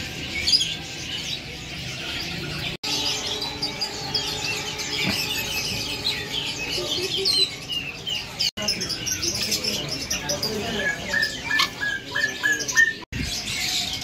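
Many caged songbirds chirping and twittering at once in a dense, overlapping chorus, with three brief gaps. Near the end one bird repeats a short note about seven times.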